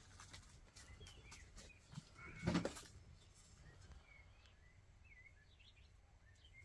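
Faint chirps of small birds, scattered throughout, with one short thump about two and a half seconds in.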